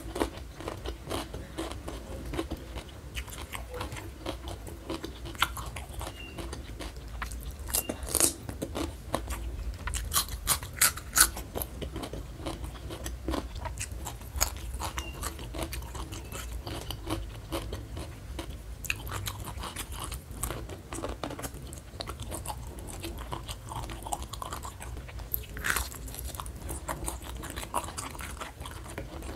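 Close-miked chewing and crunching of raw vegetables and rice eaten by hand, with wet mouth sounds throughout and a few louder crisp bites around eight and eleven seconds in.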